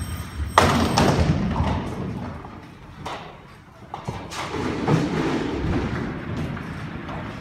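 Nine-pin bowling ball thudding onto the lane about half a second in, then rolling away with a low rumble that fades. A second rolling rumble builds a few seconds later.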